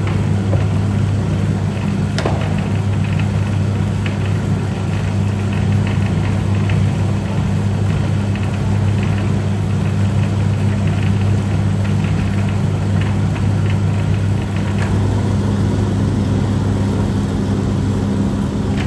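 Electric noodle-cutting machine running with a steady low hum and faint light rattling, with one sharp click about two seconds in.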